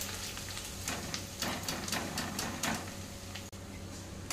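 Corn poha deep-frying in hot oil in an iron kadhai while a wire-mesh skimmer lifts the flakes out: a steady hiss of sizzling oil with scattered short crackles and clicks. The oil is well heated, so the flakes fry crisp without soaking up oil.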